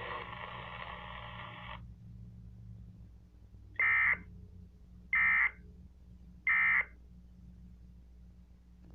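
Emergency Alert System end-of-message data bursts: three short, shrill digital warbles about a second apart, marking the end of the severe thunderstorm warning. Before them, radio hiss cuts off about two seconds in.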